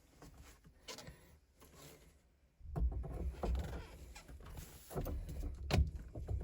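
A steering wheel being handled on a car's steering column: faint clicks at first, then irregular knocks and scraping from a few seconds in, with one sharp knock near the end.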